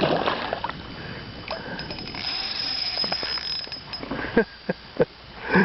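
Rustling and handling noise in a small fishing boat during a fight with a big pike, with a thin high whine in the middle and a few sharp knocks near the end.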